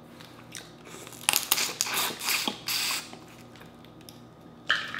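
Boiled crawfish being broken apart and peeled by hand: crackling shell and wet squishing in a run of sharp bursts between about one and three seconds in, and one more short burst near the end.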